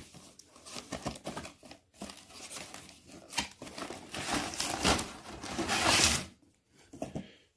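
Cardboard model-kit box being handled and its contents slid out: irregular card scraping and rustling with plastic sprues and packaging crinkling, loudest a little past the middle.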